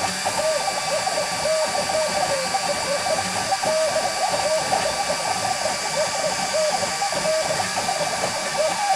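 LongMill CNC's stepper motors whining in short, quick moves, about three a second, each tone rising and falling in pitch as the gantry drives the laser head along its engraving path. Under them runs a steady high whine.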